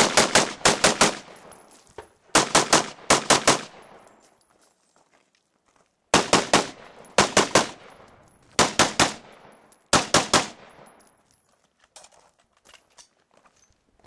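AR-15 carbine fired in quick strings of about three to six shots, with short pauses between strings and a longer break about four seconds in; each string trails off in a short echo.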